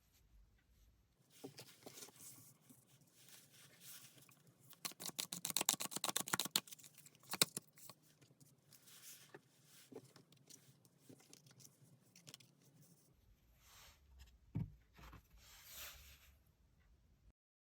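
Tarot cards being handled and shuffled: light rustling and scraping, with a run of rapid quick clicks from about five to seven seconds in.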